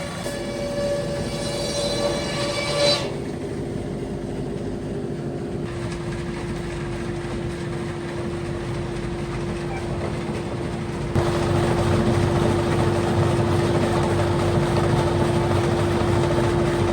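Machinery of a 1917 sawmill running: a steady mechanical drone with one constant hum through it. It gets noticeably louder about two-thirds of the way through.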